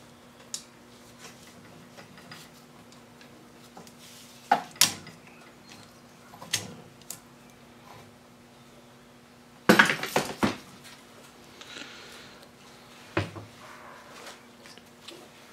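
Sharp metal clinks and clanks of a C-clamp valve spring compressor, valve spring, retainer and keepers being worked on a cast-iron Chrysler 440 cylinder head as a valve is taken out. The knocks are scattered, with the loudest cluster a little under ten seconds in.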